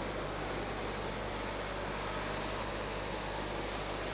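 Airbus A320 jet engines running with a steady rushing noise and a faint high whine.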